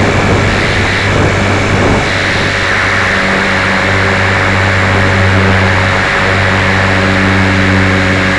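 Walkera V450D03 electric RC helicopter's motor and rotor running in flight, a steady hum heard close up through a camera mounted on the helicopter.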